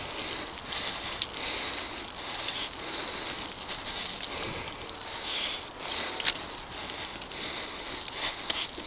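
Mountain bike rolling along a dirt singletrack trail: a steady crunch and rustle of tyres on dirt, with a few sharp clicks, the loudest about six seconds in.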